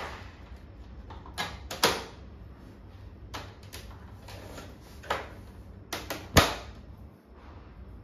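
Plastic parts of a Lloyd split air conditioner's indoor unit, its front grille and air filters, clicking and knocking as they are pressed and snapped back into place. There are about seven sharp clicks, the loudest a little over six seconds in.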